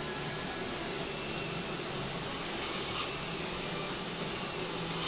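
Dental surgical suction hissing steadily, with two brief louder bursts of hiss: one nearly three seconds in and one at the end.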